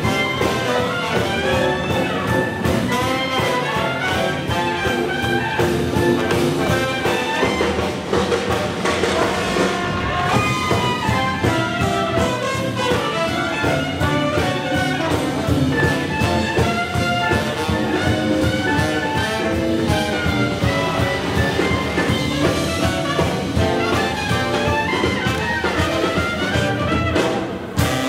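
Brass-led swing jazz band playing, with trumpets carrying the melody over a steady rhythm section.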